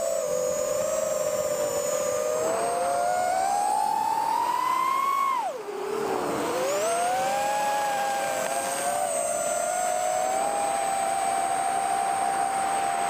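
Micro FPV quadcopter's Eachine 1105 5200kV brushless motors spinning 3-inch props, a steady whine that changes pitch with throttle. The pitch climbs to a peak about five seconds in, drops sharply as the throttle is chopped while the quad rolls over, then rises again and holds steady.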